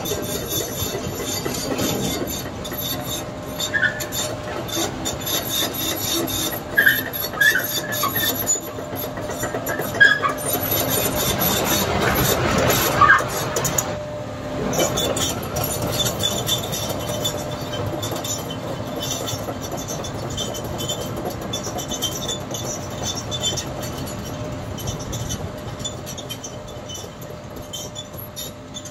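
CAT tracked excavator's engine and hydraulics running steadily while the machine travels over crushed stone, its steel tracks clanking and squealing. It is loudest about ten to thirteen seconds in.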